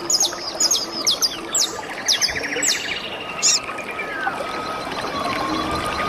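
Small birds calling: a run of quick, high chirps that each fall in pitch, with a short rapid trill about two seconds in. Under them runs a steady rush of flowing water.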